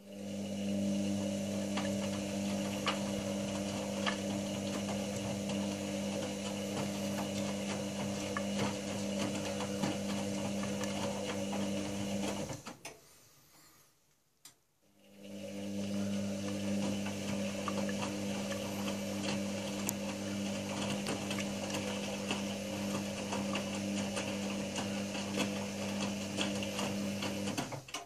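Front-loading washing machine's drum motor running with a steady hum, stopping about twelve seconds in and starting again a couple of seconds later. The run, pause and restart is the stop-start drum rotation of a wash cycle.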